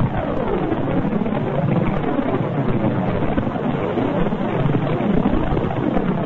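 A space sound recording presented as the sound of Saturn's rings: a dense, steady wash of eerie tones that keep sweeping up and down in pitch.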